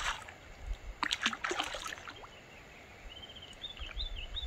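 Water splashing in two short bouts about a second apart, a hooked brook trout thrashing at the surface as it is landed. Faint high chirps follow in the second half.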